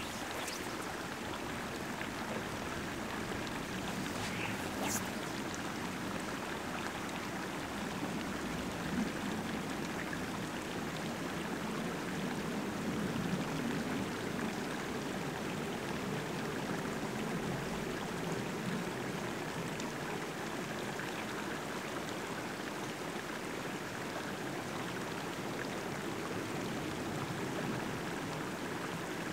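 Steady rushing, water-like noise of small waves washing among the rocks of a lakeshore, with a faint tick about five seconds in.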